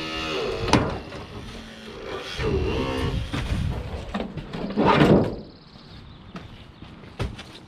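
Extrication work on a car: a tool motor's steady hum winds down at the start, then come knocks and scraping of metal, with a loud crunch about five seconds in.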